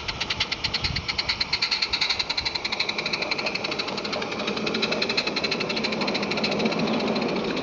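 Live-steam 16mm-scale garden railway locomotive chuffing in a fast, even beat as it hauls its coaches, with the rumble of the coaches' wheels on the track swelling as they pass close by.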